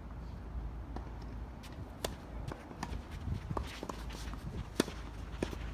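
Tennis ball struck by rackets in a doubles point: a sharp hit about two seconds in, then several more quick hits, the loudest nearly five seconds in. Players' footsteps scuff on the court under a steady low wind rumble.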